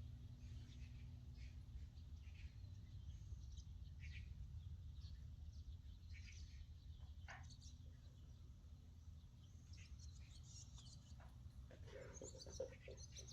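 Faint, scattered bird chirps over a low steady background hum, with a brief louder knock or rustle near the end.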